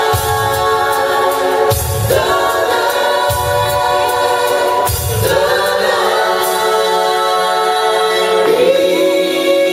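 Live soul band with a brass section and singers playing the song's closing bars: heavy beat-marked hits through the first half, then one long held chord that steps up in pitch near the end.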